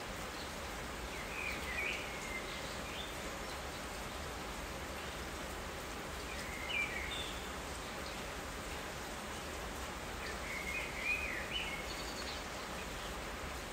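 Steady rain hissing evenly, with a bird calling three times through it in short warbling chirps: near the start, in the middle and near the end.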